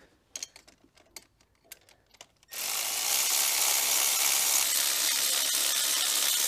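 A few light tool clicks, then about two and a half seconds in a handheld power tool starts and runs steadily, undoing one of the 16 mm bolts that hold the gearbox to the engine.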